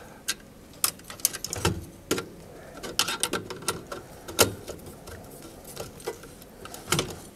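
Irregular clicks and light ticks of a small screwdriver working a terminal screw on a variable frequency drive's terminal block to clamp a wire, with plastic and wire handling.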